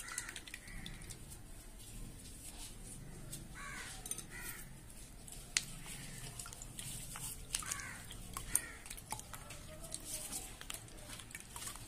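Spoon stirring and pressing thick blended raw-mango pulp through a plastic strainer: soft wet scraping with a few sharp clicks of the spoon against the strainer.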